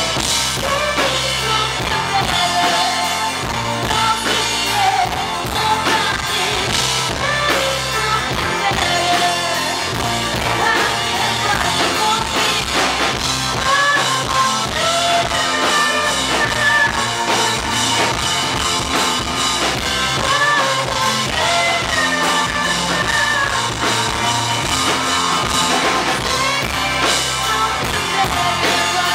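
Indie rock band playing live: drum kit, electric guitar and keyboard under sung vocals, heard from within the audience.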